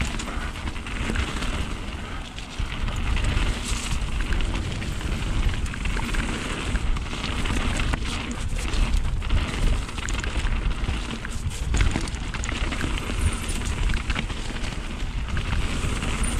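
Mountain bike descending a trail at speed: wind buffeting the microphone with a heavy low rumble, over tyre noise and frequent knocks and rattles from the bike over bumps.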